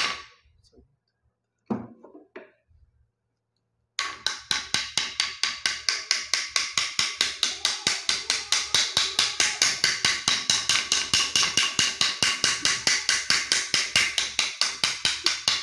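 A single sharp knock, then about four seconds in a fast, even train of sharp wooden-sounding knocks starts suddenly, about six a second, and keeps going until it stops just before the end.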